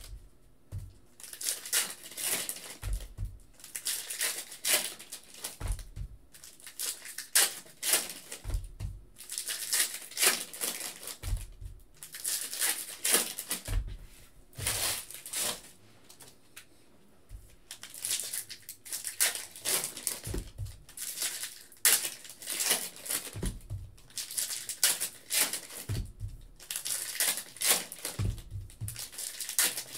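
Foil wrappers of 2017 Bowman Hobby baseball card packs crinkling and tearing as they are handled and opened, in clusters with short pauses. Soft low knocks every two to three seconds as packs and cards are set down on the table.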